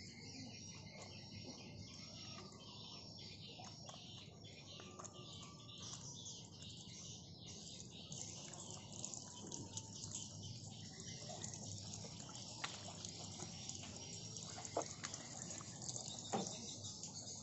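Water trickling from a small plastic dispenser tap and splashing over hands as they are rinsed, over steady insect chirping, with a few sharp drip-like ticks near the end.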